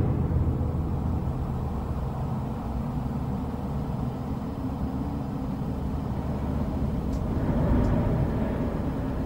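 Low, steady rumbling drone inside a stricken spacecraft cabin, fading down from a loud crash just before and swelling slightly near the end, with a couple of faint ticks.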